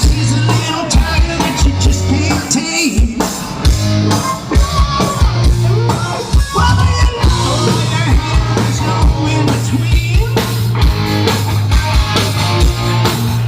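Live rock band playing, with a steady drum beat and bass under guitar and voice.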